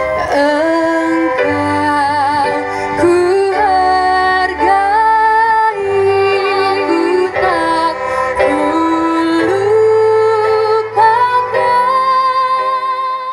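A student string ensemble of violins playing a melody in sustained notes with vibrato, over a low bass part.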